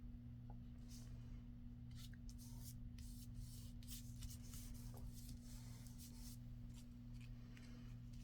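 Faint rustling and rubbing of paper as a glued paper pocket is pressed and smoothed down onto a journal page, in short scattered strokes over a steady low hum.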